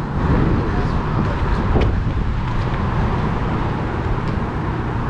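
Road traffic on a city street: a steady rumble of cars going by.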